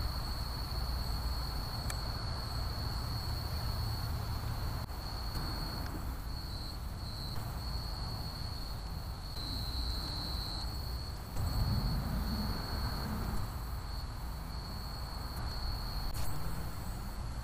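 Night insects, such as crickets, trilling steadily on one high-pitched note over a low rumbling background, with the rumble swelling briefly about twelve seconds in.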